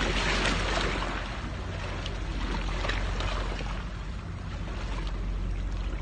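Steady rushing noise of wind buffeting the microphone together with the sea, with a constant low rumble.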